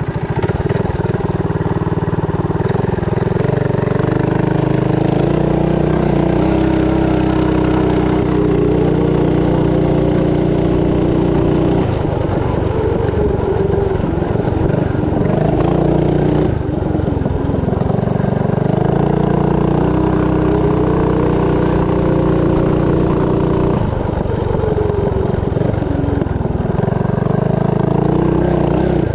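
Doodlebug mini bike's small single-cylinder engine running under load on a ride, its pitch climbing as it accelerates and dropping back when the throttle is eased, several times over.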